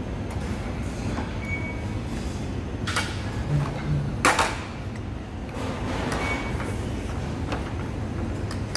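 Steady background hum of a busy dining room with a few sharp clinks of metal cutlery against dishes, the loudest about four seconds in.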